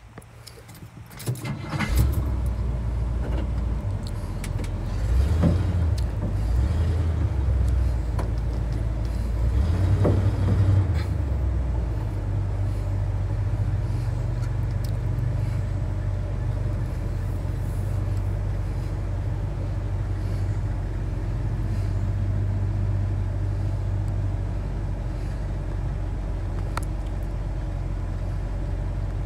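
Chevy K20 pickup's engine starting up about two seconds in, then running with a deep, steady rumble as the truck drives slowly, heard from inside the cab.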